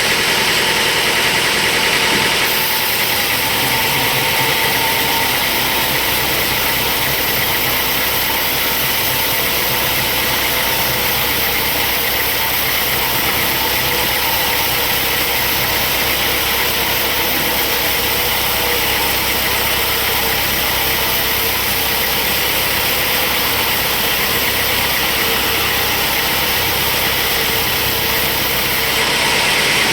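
Sawmill machinery running steadily: a dense engine-like drone with a strong high hiss, shifting slightly in tone a couple of seconds in and again near the end.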